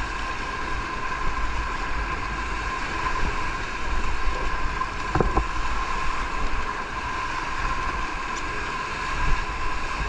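Rushing whitewater of a river rapid around an inflatable raft, steady throughout, with wind buffeting the microphone.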